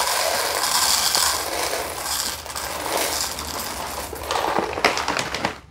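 Whole coffee beans pouring from a bag into a coffee maker's bean hopper: a dense rattle that slowly fades and thins to a few scattered clicks near the end.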